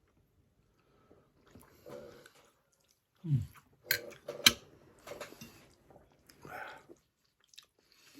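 A person chewing and biting food during a meal, with soft mouth and crunching sounds. Two sharp clicks, the loudest sounds, come about four seconds in, just after a short low falling sound.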